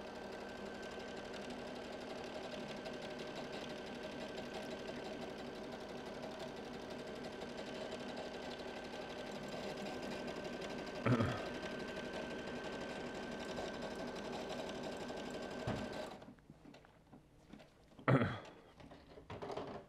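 Brother ST150HDH sewing machine running steadily at speed with a constant motor whine as it stitches an automatic one-step buttonhole. It stops by itself a few seconds before the end, the buttonhole finished.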